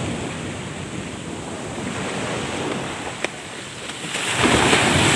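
Ocean surf breaking and washing up a sandy beach, with wind buffeting the microphone. A single sharp click a little past three seconds in, and the wash grows louder about four seconds in.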